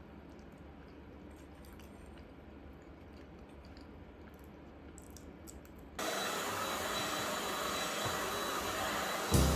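Faint clicks of a fork on a plate, then about six seconds in a stick vacuum cleaner starts running: a steady rushing noise with a thin high whine. A brief louder burst comes near the end.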